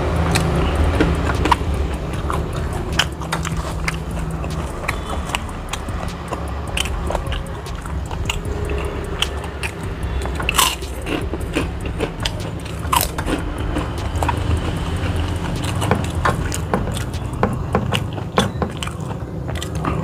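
Close-miked chewing and mouth smacking with many short sharp clicks, from eating rice, fried chicken and fried catfish with raw cabbage by hand. A steady low hum runs underneath.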